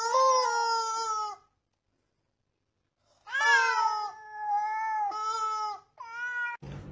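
Yellow rubber chicken toy squeezed into long, steady squawks: one drawn-out squawk ending shortly after the start, a silent pause, then a run of shorter squawks. Near the end it cuts to a low hum and hiss.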